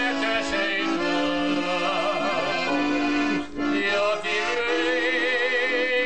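Music: a singer holding long notes with a wide vibrato.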